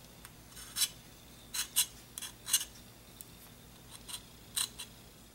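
Knife blade scraping excess hardened nail polish off the engraved lettering of a Glock pistol slide, in about ten short, sharp scratching strokes.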